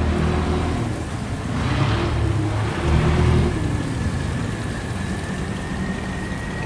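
Boat engines running as motorboats pass close by, their pitch and loudness swelling and easing, over a hiss of churning water. A thin steady whine comes in about halfway through.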